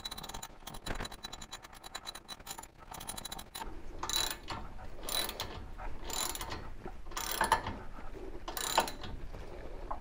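Socket ratchet clicking as it tightens a brand-new 5/8 caliper mounting bolt on a C3 Corvette front brake caliper: fast clicking for the first few seconds, then about five longer strokes roughly a second apart.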